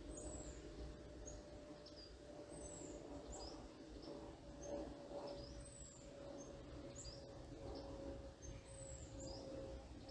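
Small songbirds giving short, high-pitched chirps and down-slurred calls every second or so, over a steady low drone from a plane overhead whose pitch slowly drops.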